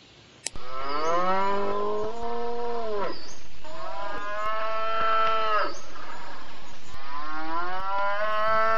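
Cattle mooing: three long moos, each rising in pitch at the start and dropping away at the end, the first starting about half a second in and the last about seven seconds in.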